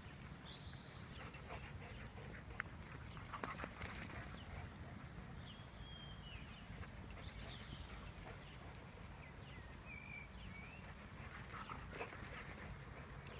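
Two dogs running and chasing each other in play, their paws thudding on dirt and grass in scattered quick footfalls.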